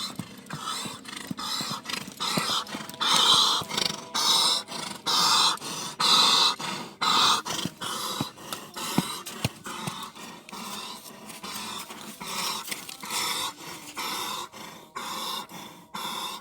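Horse breathing hard and fast, a loud rasping breath about once a second: the laboured breathing (dyspnoea) of a horse with recurrent airway obstruction, or heaves.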